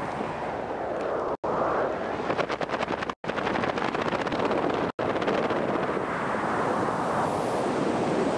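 Wind rushing over the microphone of a camera carried under a parachute canopy: a steady rushing noise that flutters rapidly about two to three seconds in, broken by a few brief silent dropouts.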